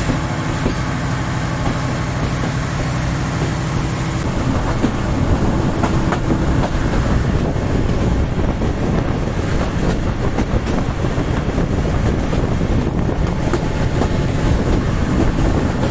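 Diesel-hauled passenger train running on broad-gauge track as it gathers speed after leaving a station: a steady engine drone in the first few seconds gives way to the rumble of wheels on rails, with scattered clicks from rail joints.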